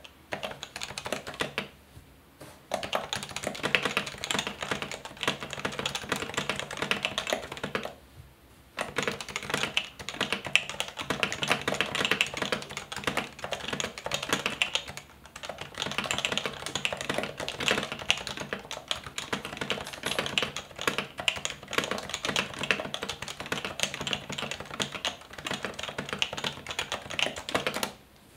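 Typing on a Happy Hacking Keyboard (HHKB) with Topre electrostatic-capacitive rubber-dome switches: a fast, continuous stream of keystrokes, broken by short pauses about two, eight and fifteen seconds in.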